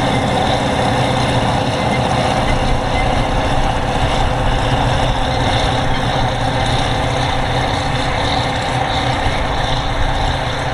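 Kirovets K-744 tractor's diesel engine running steadily under load while it pulls a disc harrow, a constant heavy drone.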